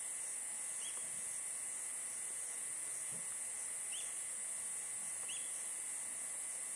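Steady high-pitched drone of insects in the bush, with three faint short chirps: one about a second in, one at four seconds and one at about five seconds.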